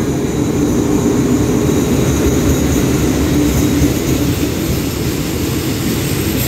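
Diesel-electric locomotive hauling a passenger train into a station: a loud, steady engine drone as the locomotive passes, easing after about three or four seconds into the steady rumble of the coaches rolling over the rails.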